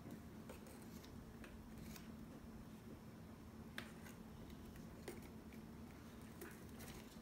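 Faint, scattered clicks and taps of plastic tongs knocking about inside a plastic beaker of water, over a low steady hum.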